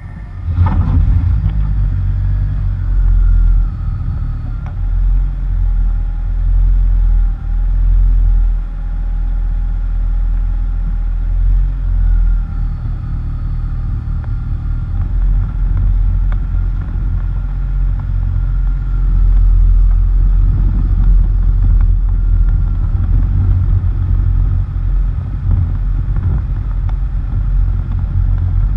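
Steady low rumble of road noise as a vehicle drives along a dirt and gravel road: tyres on the rough surface and wind buffeting a camera mounted low on the front bumper. A faint wavering whine sits above the rumble.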